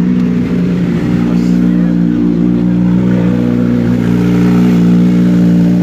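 Motorcycle engine idling steadily close by, an even running note with no revving.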